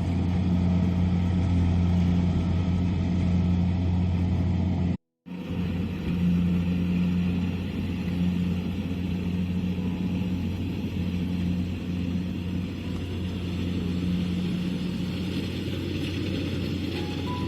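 Kubota DC-70 combine harvester's diesel engine running steadily with a deep, even hum. The sound cuts out for a moment about five seconds in, then resumes.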